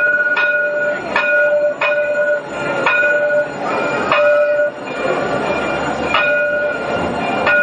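Modern low-floor electric tram passing close by: a steady electric whine at a few fixed pitches, broken by sharp clicks about once a second from the wheels on the track.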